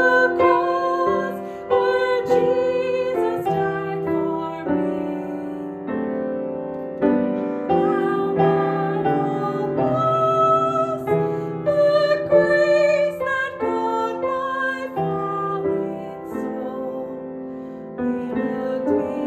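Woman singing a slow melody in long held notes with vibrato, accompanied by piano.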